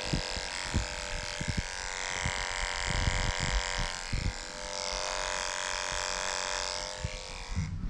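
Electric dog grooming clippers running with a steady hum as they trim a schnauzer puppy's ear, with light handling bumps underneath; the hum stops near the end.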